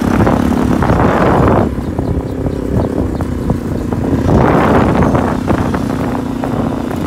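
Wind rushing over the microphone on a moving motorbike, with the bike's engine running steadily underneath. The wind noise swells at the start and again about four seconds in.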